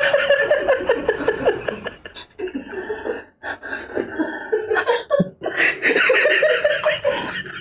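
A man laughing hard, in several long bursts of quick pulses with brief breaks for breath between them.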